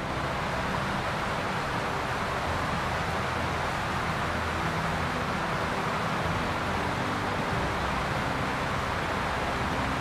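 Whitewater rapids of a mountain river rushing, a steady, even roar of water.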